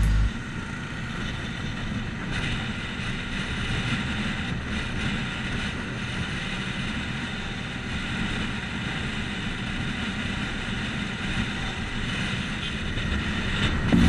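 Bajaj Pulsar 150's single-cylinder engine running steadily while cruising at about 90 km/h, heard from the rider's camera with wind and road noise.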